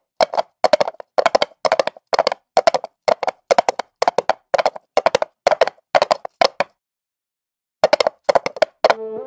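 Percussion beats in a soundtrack, sharp claps or knocks about two a second with dead silence between them, stopping for about a second and then striking a few more times. Near the end a pitched melody comes in.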